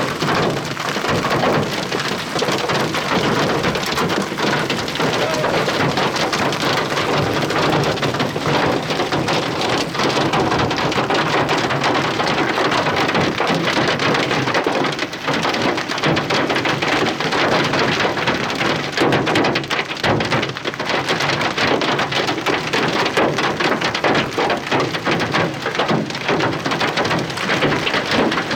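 Heavy rain pelting a vehicle's roof and windshield: a dense, unbroken patter of countless small hits at a steady loud level.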